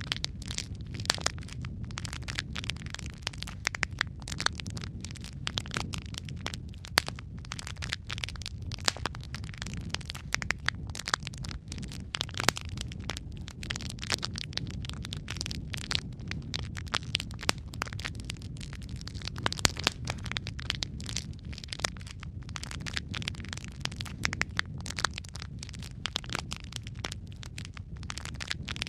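Wood logs burning in a fireplace: a steady low rumble of flame with dense, irregular crackles and sharp pops.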